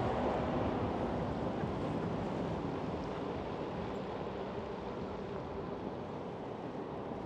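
City street traffic: the noise of a passing vehicle fading steadily as it moves away, over a steady background rush.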